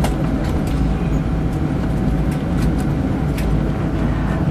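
Inside the cabin, a Boeing 777-200 rolling out on the runway after touchdown: a steady low rumble of engines and wheels, with a few faint clicks.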